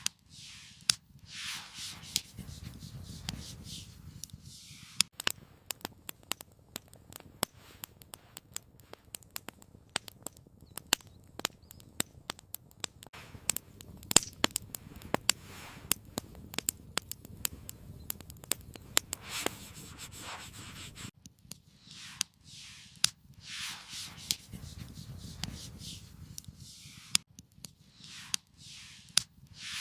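Wood fire crackling, with many sharp snaps and pops that thin out about two-thirds of the way through. A few soft swishing rustles come near the start and again near the end.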